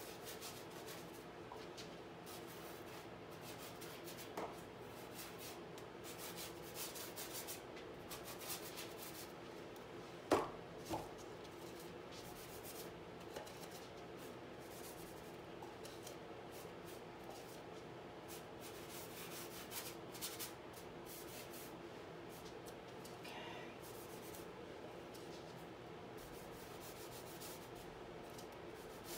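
Paintbrush bristles scraping and rubbing thick paint across a stretched canvas in irregular strokes, over a steady low hum. A sharp knock sounds about ten seconds in, with a smaller one just after.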